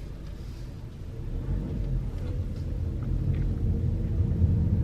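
Chevrolet Malibu engine and road rumble heard from inside the cabin as the car pulls away, growing steadily louder as it gathers speed.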